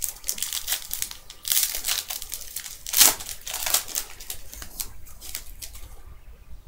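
Foil wrapper of a Panini Prestige football card pack crinkling in the hands and being torn open, with the loudest rip about three seconds in. Softer rustling follows near the end.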